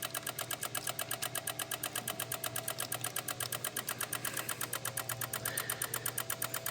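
Relays in a 2016 Honda HR-V chattering rapidly and steadily, about eight clicks a second over a faint hum. It is a no-crank, no-start electrical fault that the owner traces to the engine wiring harness, since pressing on the harness quiets the relays.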